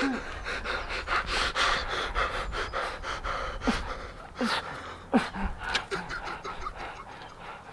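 A person's heavy, ragged breathing and panting, with a few short low grunts in the middle.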